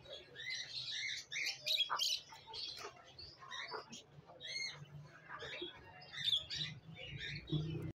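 Many small cage birds chirping at once, short high calls overlapping from several birds, with a quick repeated trill about halfway through.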